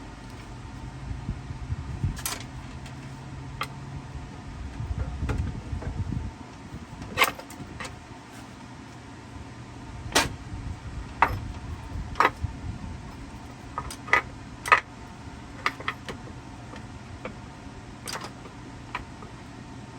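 Scattered sharp clinks and knocks of hand tools and parts being handled during engine work, about fifteen over the span and irregularly spaced, over a steady low hum and a brief low rumble a few seconds in.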